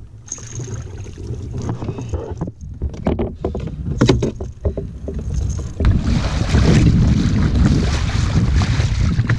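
Wind buffeting the microphone on a kayak at sea, with scattered knocks and rattles of fishing gear being handled. About six seconds in it turns into a louder, steady rush of wind and water.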